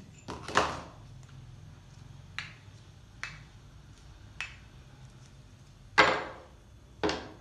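Knocks and clatters of objects handled on a hard tabletop: about six separate knocks, the loudest about six seconds in, with a shorter loud one near the start.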